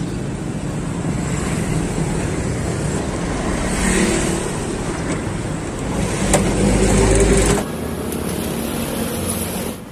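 Road traffic going by as a steady noise, with a louder low rumble of a passing vehicle from about six seconds in that stops abruptly a second and a half later.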